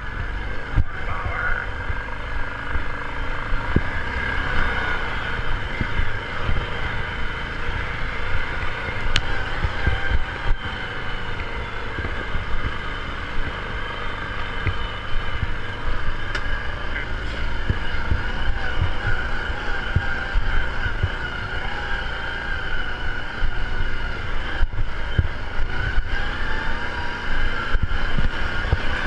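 ATV engine running while riding along a trail, its pitch rising and falling a little, with frequent low knocks underneath.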